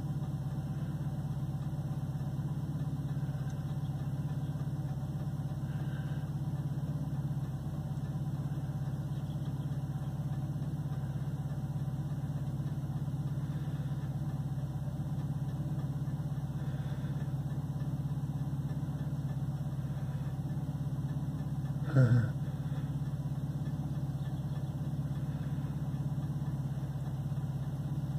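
Car engine idling steadily, heard from inside the car. About two-thirds of the way through, one short, louder sound drops quickly in pitch.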